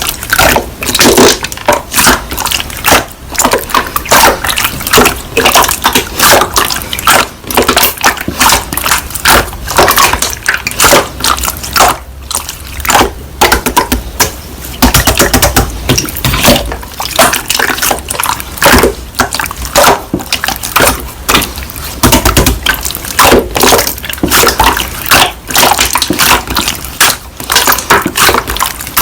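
Slime being squished and pressed by hand: a continuous, irregular run of wet clicks and crackling pops.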